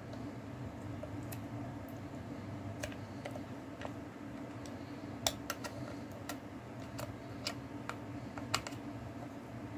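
Irregular small clicks and taps of hands rummaging among small hard objects on a desk, a few sharper than the rest in the second half, over a steady low hum.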